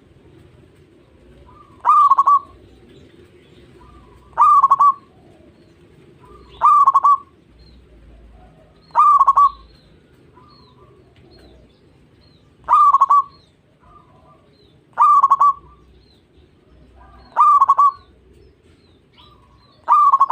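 Zebra dove (perkutut) singing its cooing song: short bursts of quick cooing notes, about eight of them, one every two to three seconds, each lasting well under a second. A faint low hum lies underneath.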